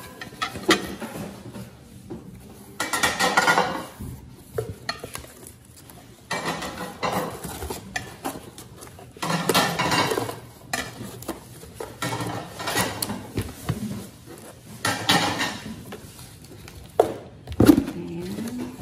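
Porcelain Villeroy & Boch Christmas plates clinking against one another as they are lifted and stacked, with cardboard packing separators rustling and scraping in bursts as they are pulled out. A single sharp knock comes near the end.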